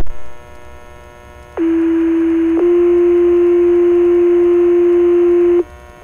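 Fire dispatch radio paging tones. A click as the transmitter keys up, then a two-tone sequential page: one steady tone for about a second, followed by a slightly different steady tone held for about three seconds, over radio hiss. The page alerts the volunteer firefighters' pagers to a call.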